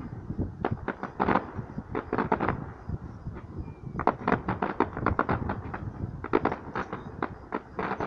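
Fireworks bursting: a rapid series of sharp bangs and crackles in clusters, thickest from about four seconds in.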